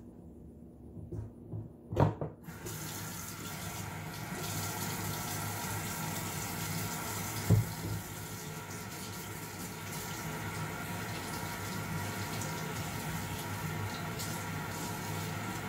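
Kitchen faucet turned on and running steadily into a stainless-steel sink from about two and a half seconds in. A sharp knock comes just before the water starts, and another about halfway through.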